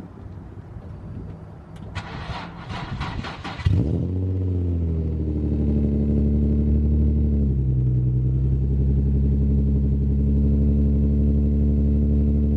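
Infiniti G35's 3.5-litre V6 cranking for under two seconds, then catching and running, flaring briefly before settling into a steady fast idle that drops slightly about halfway through. It is a cold start that nearly failed, which the owner puts down to a loose negative battery terminal.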